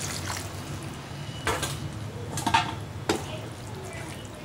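Wooden spatula stirring watery liver curry in a metal pan, knocking and scraping against the pan three times.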